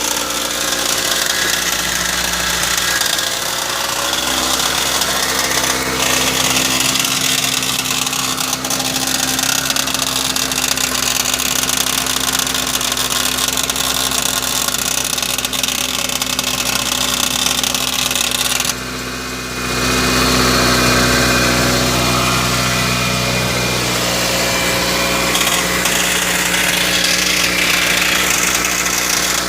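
Toyota Matrix engine running, with several steady tones over the engine sound; it dips briefly about two-thirds through, then comes back louder. This is the unexplained noise that persists after the dealer replaced the starter, which they had blamed for staying engaged after start-up.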